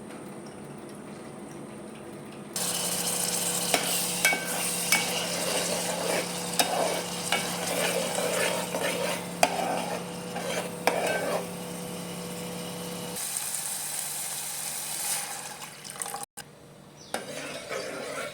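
Food frying in hot oil in a pan, sizzling with a hiss that starts abruptly a couple of seconds in, while a spatula stirs it and clicks and scrapes against the pan. The sizzle eases to a softer hiss over the last few seconds.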